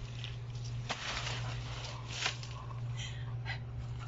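Long-handled loppers working through a leafy plant: a few short crunching snips and leaf rustles, over a steady low hum.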